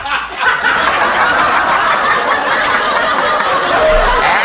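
A person laughing: continuous snickering and chuckling.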